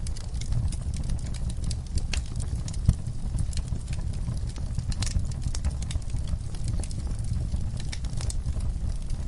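Wood fire crackling, with frequent irregular sharp pops and snaps over a steady low rumble; one louder pop about three seconds in.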